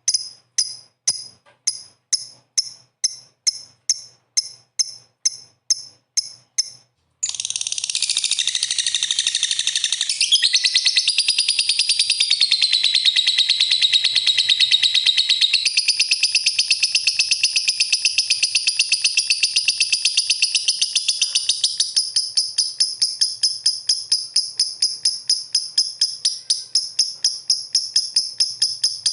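Lovebirds chirping: first a run of short, high, evenly spaced chirps, two or three a second. About seven seconds in, the sound changes abruptly to dense, rapid, continuous chattering.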